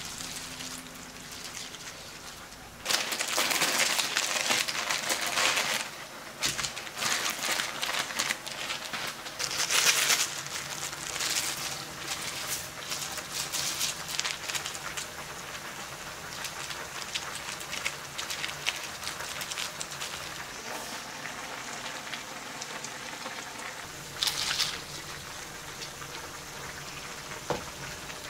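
Spicy ramen broth with beef brisket and vegetables sizzling and bubbling hard in a shallow pan. The crackling starts suddenly about three seconds in and is loudest over the next several seconds, then settles to a steadier, quieter sizzle.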